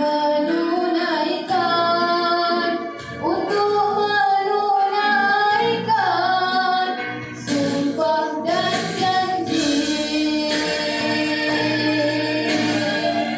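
A boy's solo voice singing a patriotic song over a musical backing, moving between sustained notes and ending on a long held note near the end.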